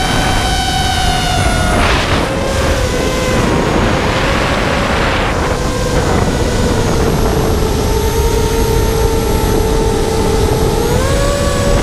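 Electric motors of an FPV quadcopter whining, heard from the onboard camera, over wind rushing across the microphone. The whine drops in pitch about two seconds in, holds lower, and climbs again near the end.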